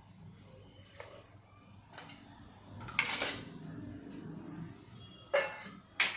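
Dishes and cutlery clattering in a kitchen: a few light knocks, a longer clattering scrape about three seconds in, and a sharp ringing clink near the end.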